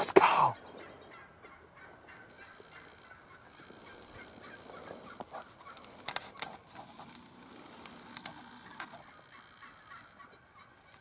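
Wild turkey gobbling, one loud call right at the start, then a quiet stretch with a few faint short calls from the flock.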